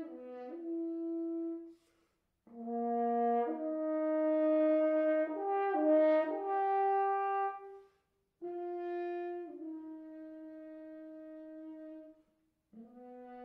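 Unaccompanied French horn playing slow phrases of long held notes. A phrase ends about two seconds in; after a short breath comes a louder phrase, then a softer one that dies away about twelve seconds in, and a new phrase begins near the end.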